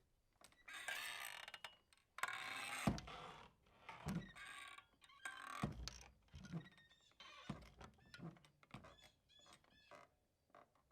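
Swinging saloon doors, their hinges creaking and squeaking as the doors swing back and forth with a low thud on several passes; the swings grow shorter and quieter until they settle.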